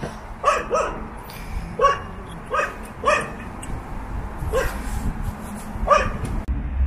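A dog barking, about seven short single barks at uneven intervals.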